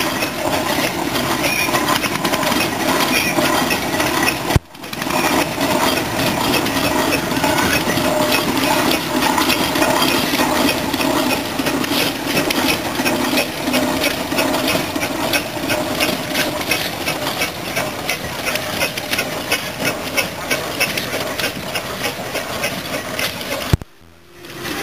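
1914 Wallis & Steevens steam traction engine running as it drives along, a steady mechanical clatter with a fast, even beat. The sound breaks off briefly about four and a half seconds in and again near the end.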